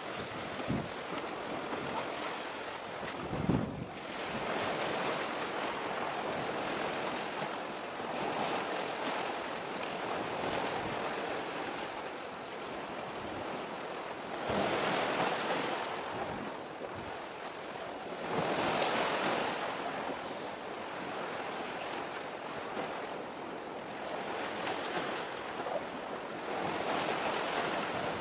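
Sea waves washing, swelling and easing every few seconds, with wind buffeting the microphone in low thumps.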